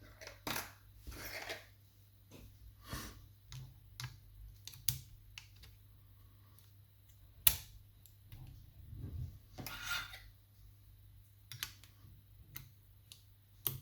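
Steel levers of a lever mortice lock being fitted back into the lock case: irregular light metal clicks and short scrapes, with one sharper click about halfway through.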